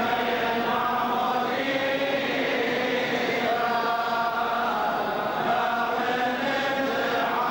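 A group of voices singing a slow funeral liturgical chant in unison. Long notes are held and step from one pitch to the next every second or two.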